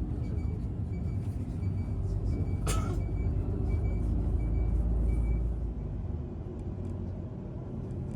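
Low steady rumble of a road vehicle's engine, with a regular high tick about every half second that stops around five and a half seconds in. A short hiss comes near three seconds in, and the rumble drops soon after the ticking ends.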